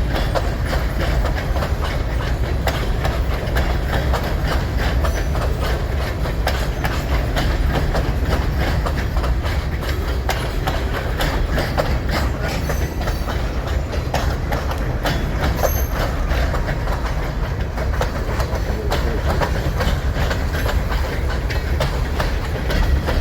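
Cars of a long, mostly empty freight train rolling past, many of them empty center-beam flatcars. Steady rumble with a constant run of wheel clicks over the rail joints.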